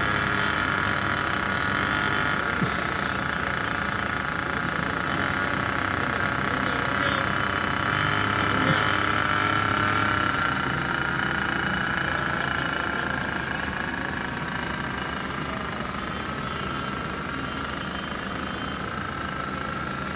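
Small fuel-powered engine of a remote-controlled airship running steadily in flight, a high buzzing whine that shifts slowly in pitch and fades a little toward the end.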